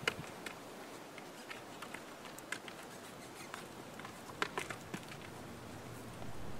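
Faint, irregular hoof thuds and clicks of a young horse trotting on dry, straw-covered ground and stepping up onto and off a low platform of wooden railroad ties, with the strongest knocks about four and a half seconds in. A low steady rumble comes in near the end.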